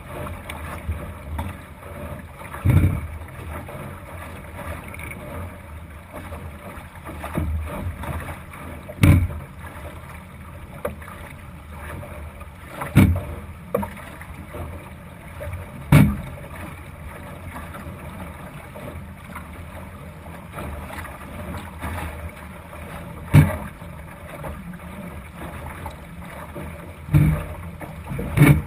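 Thistle sailing dinghy under way: a steady rush of water and wind along the hull, broken every few seconds by sharp thumps as the hull slaps into waves.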